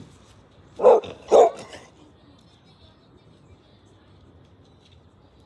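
A small dog barks twice in quick succession, about half a second apart, around one second in.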